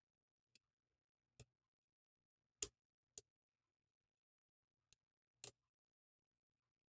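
Six sharp, irregularly spaced clicks of a pick working the pins of a Deguard 4-pin dimple lock, with near silence between them.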